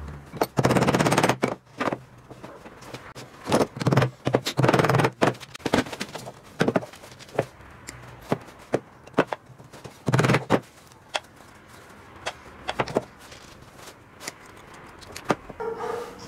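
Bursts of rapid clattering and scattered sharp clicks from small metal hardware and tools being handled on a wooden workbench while small hinges are fitted to a wooden box.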